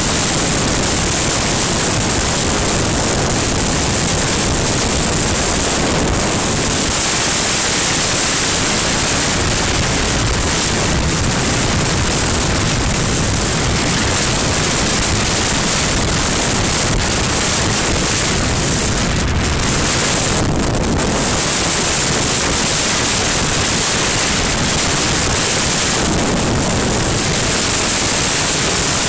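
Steady rush of wind buffeting the camera microphone on a BMW R1200 Adventure motorcycle at road speed, with the engine not picked out. The hiss thins briefly about two-thirds of the way through.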